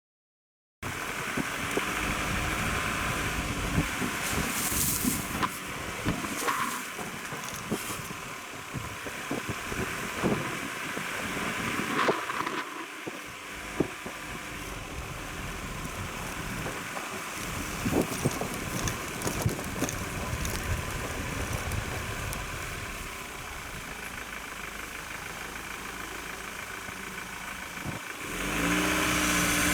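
Ford Ranger pickup driving over a gravel track: steady tyre rumble with stones crackling and popping under the tyres, getting louder near the end.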